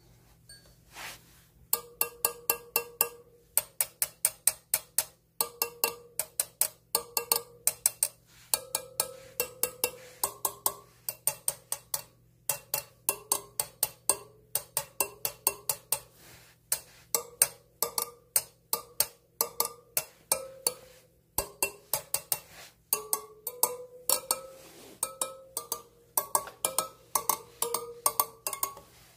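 Steel spokes of a BMW F850GS spoke wheel tapped one after another with a metal rod, each giving a short ringing ping, in quick runs of about three or four taps a second with short pauses. The pitch of the ping shifts a little from spoke to spoke, the ring that is used to judge spoke tension.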